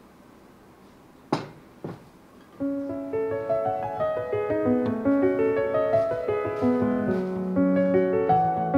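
Two sharp clinks of china being set down on the table, then solo piano background music starts about two and a half seconds in and plays on.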